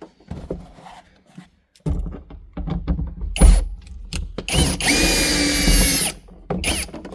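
Small cordless electric screwdriver with a Torx bit backing out the screw of a sun visor mount. It gives a few short bursts of the motor with handling knocks, then one longer run of about a second and a half near the end, its whine rising and then holding steady.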